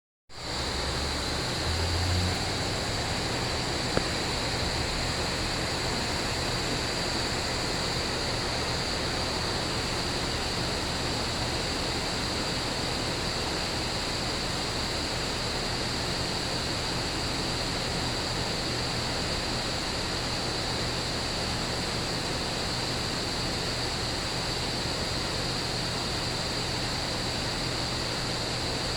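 Steady rain hiss with a constant high-pitched chorus of crickets over it. A short low rumble comes about two seconds in, and a single sharp click about four seconds in.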